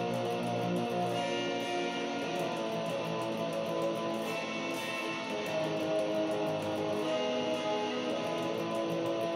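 Black metal intro music led by guitar, held chords at an even level, changing to a new chord about four seconds in and again near seven seconds.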